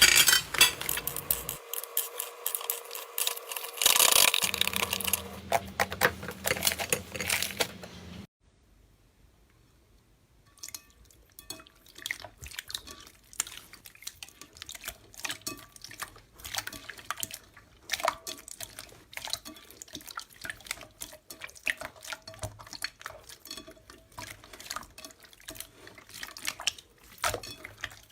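Slime being squished and poked by hand: wet sticky clicks and small pops. A louder, noisier stretch comes first, then a short break of near silence, then a long run of rapid crackling clicks.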